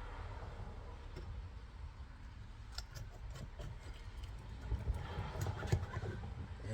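Faint, scattered clicks and light knocks of clutch slave cylinder parts being handled and fitted back together, over a low steady room rumble.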